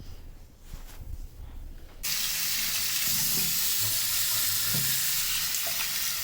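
Water running steadily, as from a tap, starting abruptly about two seconds in.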